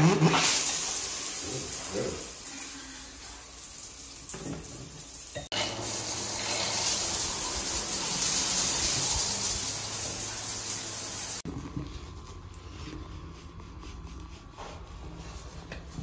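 Water spraying from a newly installed Delta handheld shower head onto the tiled shower floor: a steady rushing hiss with a brief break about five and a half seconds in. It cuts off suddenly about eleven seconds in, leaving only quiet room sound.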